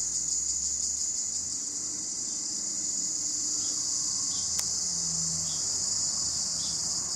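Steady, high-pitched trilling of insects, unbroken, with one faint click about halfway through.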